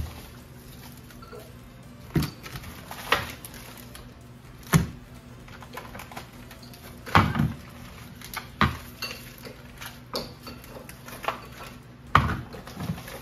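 Frozen vacuum-packed meat packages being set down and shuffled on the lid of a chest freezer: a series of hard knocks, about seven, spaced irregularly a second or two apart.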